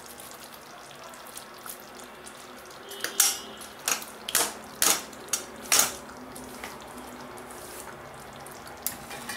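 A strainer knocked against a steel kadhai about six times in quick succession, shaking boiled peas and fenugreek leaves into simmering gravy, with a faint steady hiss beneath.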